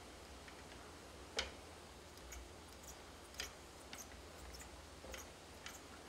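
Faint scattered clicks and light knocks from a cable reel turned by hand as the inclinometer control cable is wound onto it, with two sharper clicks about one and a half and three and a half seconds in.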